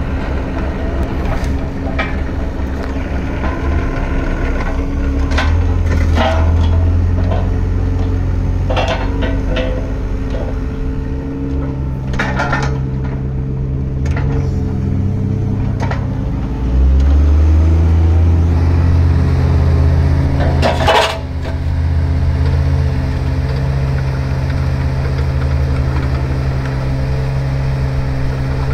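Yanmar VIO20-4 mini excavator's diesel engine running while the boom, arm and swing are worked, its note stepping up as hydraulic load comes on, about 5 seconds in and again at about 17 seconds. Over it come scattered metal clanks and knocks from the working gear, the loudest about 21 seconds in.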